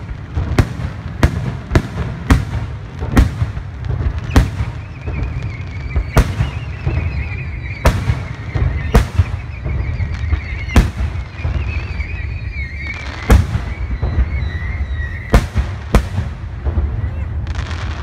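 Aerial firework shells bursting overhead as sharp bangs, several in quick succession in the first couple of seconds, then one every second or so, over a steady low rumble. A wavering high whistle runs through the middle.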